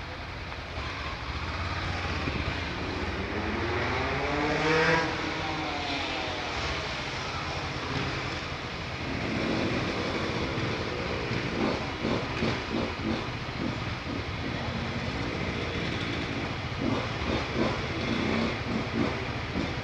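Motorcycle engine heard from the rider's seat, rising in pitch as it pulls away and dropping back a few seconds in. It then runs at idle with an uneven rumble while stopped at a traffic light.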